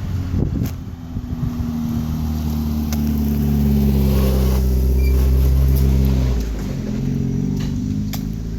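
A motor vehicle's engine running with a steady low hum that swells louder over several seconds and drops off about six seconds in.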